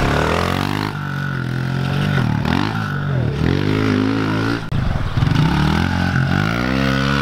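Small pit bike engine revving hard as it is ridden flat out around a dirt track. Its pitch climbs, drops sharply twice, about three and about four and a half seconds in, as the throttle is rolled off into turns, then climbs again.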